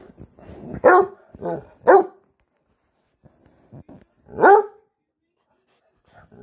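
A dog barking at its owner for attention: three short barks in quick succession about a second in, then a longer bark that rises in pitch a little after four seconds.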